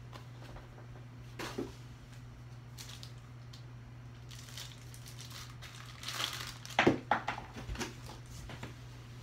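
Packing material crinkling and rustling as a small part is unwrapped by hand, with scattered handling clicks. The loudest crumpling comes in a cluster of sharp rustles about six to eight seconds in.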